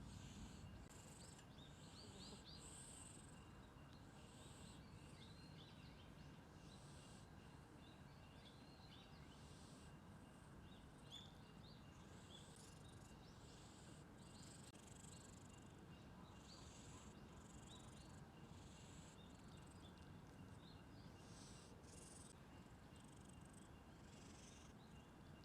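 Faint outdoor background: a steady low rumble under scattered short, high chirps.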